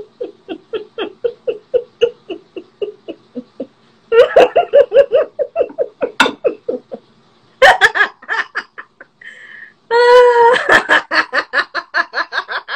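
Laughter: a long run of short, rapid ha's, about four a second, breaking into louder bursts about four and eight seconds in. The loudest part is a high, drawn-out laugh around ten seconds in.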